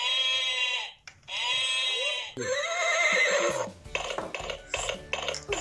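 A horse whinny played from an electronic baby toy's small speaker: three calls over about four seconds, the last with a shaky, wavering pitch, followed by light clicking.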